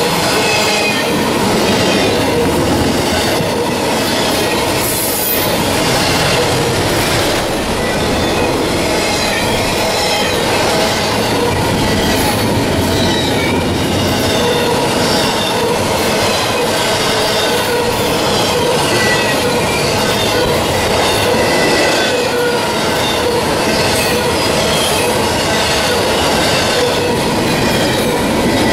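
Intermodal freight cars, loaded with containers and trailers, rolling steadily past at close range, making a loud, even rumble of steel wheels on rail. Thin, high, wavering wheel tones run through it, with now and then a clack.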